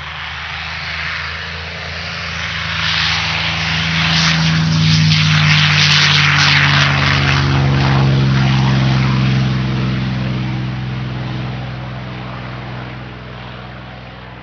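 P-51 Mustang's Merlin V12 engine at full power on its takeoff run. It grows very loud as the aircraft passes close, drops slightly in pitch, then fades as the plane climbs away.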